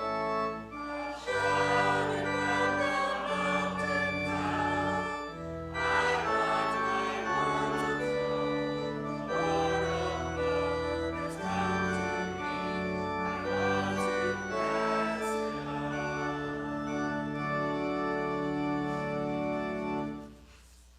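Church organ playing a hymn, with voices singing along. The music ends about a second before the end.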